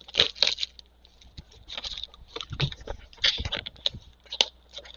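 Rustling, crinkling and scraping of cardboard and plastic packaging as a trading-card Mega box is handled and opened, in irregular short clicks and scrapes.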